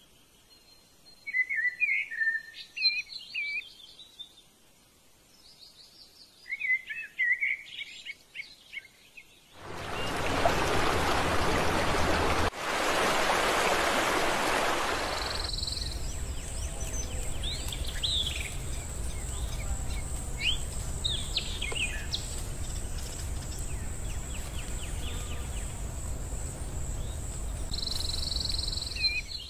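Songbirds singing short warbling phrases over quiet surroundings. About a third of the way in, a loud steady rushing noise starts suddenly. It then settles into a quieter steady rush with a low rumble, a thin high steady whine and scattered bird chirps.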